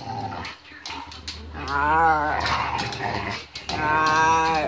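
Two dogs play-fighting. One lets out two drawn-out, whining growls: the first about two seconds in, rising then falling in pitch, and the second near the end. Short clicks and scuffles, from the dogs' claws and feet on a wooden floor, run between them.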